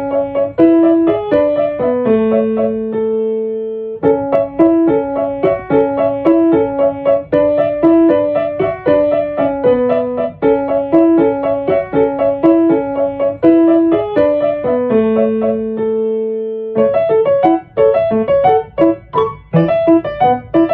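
Background piano music: a repeating melody of struck notes that pauses on long held notes twice, then turns to a busier, more detached passage near the end.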